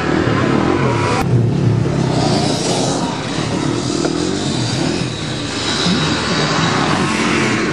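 Off-road vehicle engines running on ice, their pitch rising and falling as they rev, with a sharp click about a second in.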